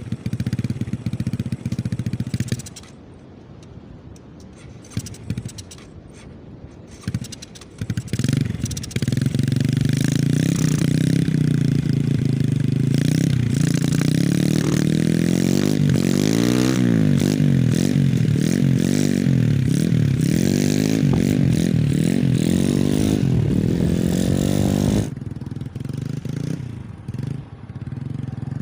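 Small trail motorcycle engine running: a short burst at the start, fainter for a few seconds, then revving up and running loud from about a third of the way in, its pitch rising and falling as it is ridden. Near the end the engine sound drops off suddenly to a fainter level.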